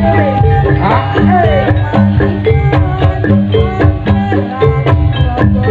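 Javanese gamelan playing live jaranan dance music. Metallophones ring out a repeating pattern of held notes over dense hand-drum strokes, with a sliding melody line above them.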